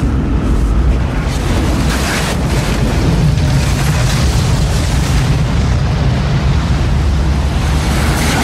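Film sound effect of a tornado: a loud, continuous rush of wind and flying debris with a heavy, deep rumble.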